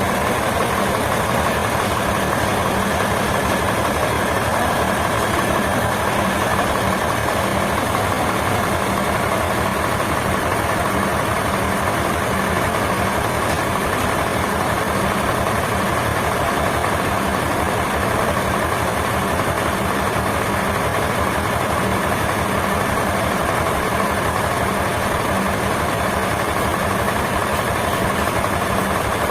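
A heavy engine running steadily at idle, with a low, evenly pulsing tone.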